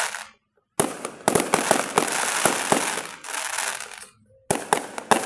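Fireworks going off in rapid succession: many sharp bangs over a dense crackle, cut off abruptly twice for a moment.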